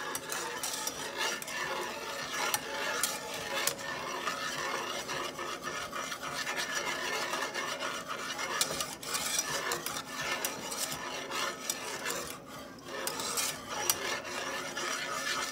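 Wire whisk scraping and clinking continuously against the bottom and sides of a metal saucepan, beating warm buttermilk as butter melts into it, with a short lull about twelve seconds in.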